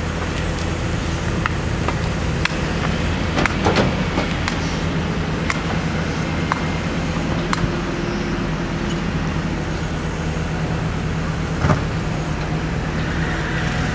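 Cat 319C tracked excavator's diesel engine running steadily under load as the boom and bucket dig. A few sharp metallic clanks and knocks sound from the digging, the loudest about four seconds in and near the end.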